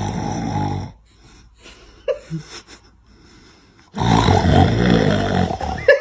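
A man snoring loudly, with deep rasping snores. One snore ends about a second in and another runs for about two seconds near the end. A few faint small sounds come in the quiet between them.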